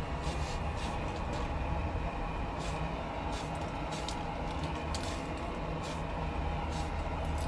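Short hisses from an aerosol spray-paint can, about a dozen quick separate bursts as paint is dabbed on in spots, over a steady low rumble.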